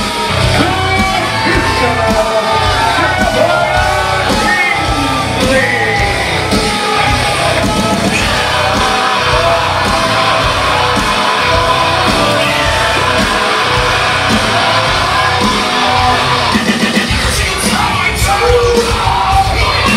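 Wrestler's entrance music: a loud song with shouted vocals over a steady beat.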